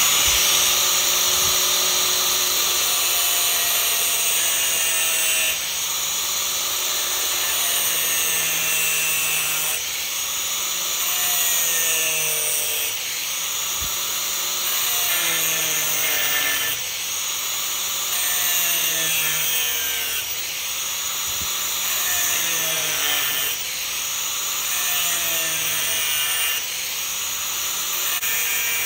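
Angle grinder with a cut-off disc running and cutting into the metal casing of an electric fuel pump. Its motor note dips in pitch and recovers every two to three seconds as it is pressed into the cut.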